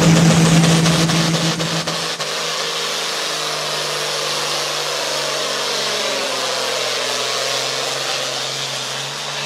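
Heavily turbocharged IH 1066 six-cylinder diesel engine running flat out at steady high revs as the pulling tractor drags the weight sled. It is loudest for the first two seconds, then drops a little and holds steady.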